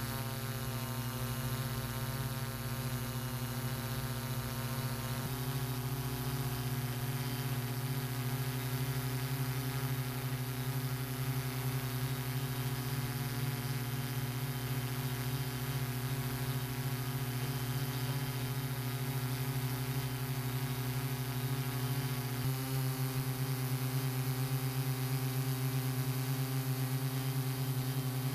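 Steady hum of a hexacopter's electric motors and propellers, heard from the drone itself. Its pitch steps to a new level twice, about five seconds in and again about three-quarters of the way through.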